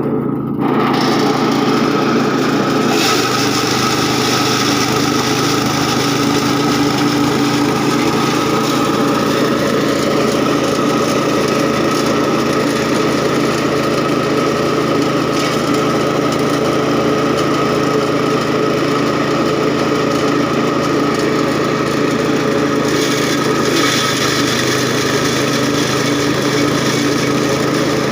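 A small engine comes in about half a second in and runs steadily at one even speed, with a rise in hiss about three seconds in.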